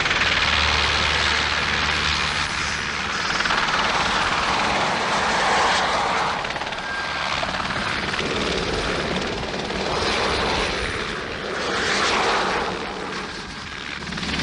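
Alouette II helicopter in flight: steady turboshaft engine and rotor noise, swelling and fading in loudness a few times.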